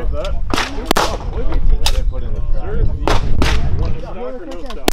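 Gunshots on an outdoor firing range: about six sharp cracks at uneven intervals, two of them close together about a second in. Voices talk underneath.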